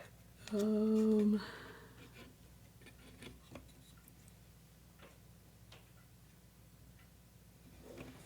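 A woman's short, steady hummed "mmm" lasting about a second, then faint scattered clicks and taps as small kit parts and wires are handled.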